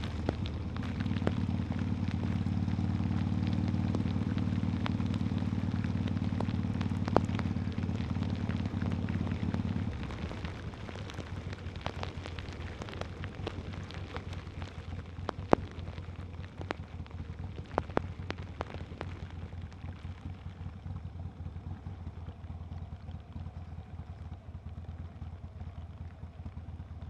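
Harley-Davidson motorcycle engine running steadily in heavy rain, with raindrops hitting the microphone as sharp clicks throughout. About ten seconds in the engine note drops and gets much quieter, leaving mostly the rain noise and drop hits.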